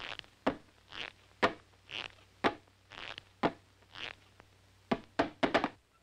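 Cartoon sound effects of stealthy steps down wooden stairs: sharp knocks alternating with softer hissing sounds, about two a second. Near the end comes a quick run of four or five knocks.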